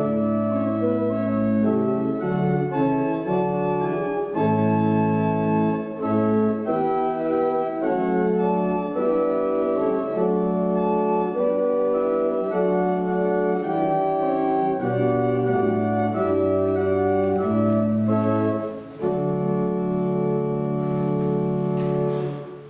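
Organ playing a slow piece in sustained chords over a moving bass line. After a short break near the end, a final chord is held for about three seconds and dies away.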